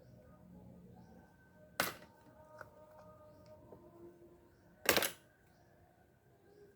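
Two sharp clicks from the metal parts of a rusted spinning fishing reel being handled during disassembly, one about two seconds in and a louder one about five seconds in, with a few faint ticks between them.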